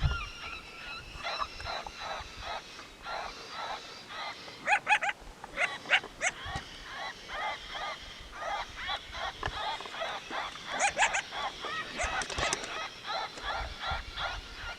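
Coyote yips and short howls, a fast run of high, rising-and-falling yelps that goes on without a break.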